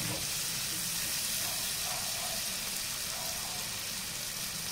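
Chopped onion, garlic and leek sizzling steadily in a cast-iron pan as they fry and soften.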